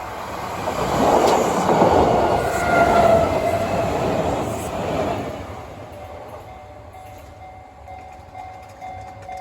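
A Kintetsu Minami-Osaka Line train passing over a level crossing. Its rumble is loudest in the first half and fades away after about five seconds. The crossing's warning bell keeps dinging in repeated strokes, heard clearly as the train noise dies down.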